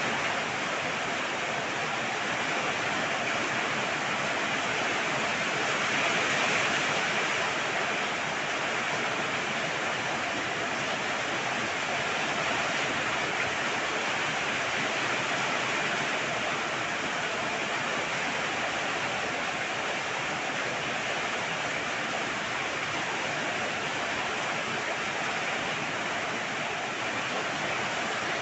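Heavy rain pouring down steadily, an even, unbroken hiss of falling water.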